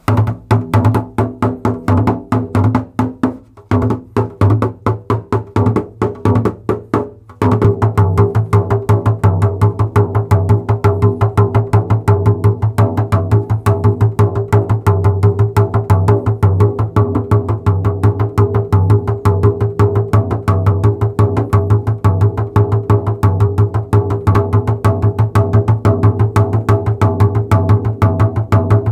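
REMO Fiberskyn 14-inch frame drum played with the fingers and hands: rapid strokes on the head over a low ringing drum tone. The playing is sparser, with two brief pauses, for the first seven seconds or so, then becomes a continuous fast run of strokes.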